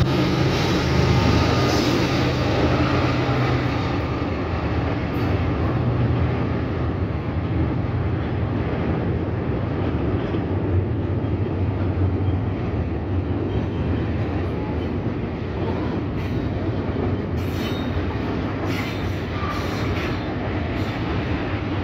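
Freight train passing: a diesel locomotive's engine sounds over the first few seconds as it goes by. Double-stack container cars then roll past with steady wheel and rail noise.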